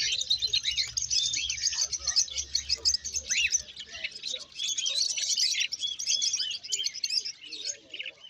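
Many small cage birds chirping and twittering together, a dense, continuous chorus of short high notes.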